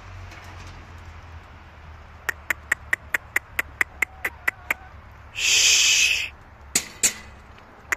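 Pit bull puppies at play with an adult pit bull: a quick run of short, sharp yips at about five a second, followed near the end by a loud hissing burst of just under a second and two sharp knocks.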